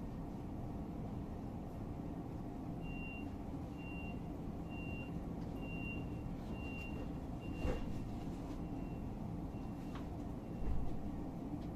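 Class 425 electric multiple unit humming steadily while a high beep repeats about once a second from about three seconds in, growing fainter, typical of the door-closing warning; two short thumps come in the second half.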